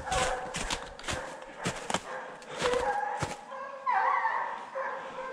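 Pack of scent hounds baying as they run a wild boar's track, several dogs crying at once, with the loudest call about four seconds in. Many short sharp rustles and cracks run alongside.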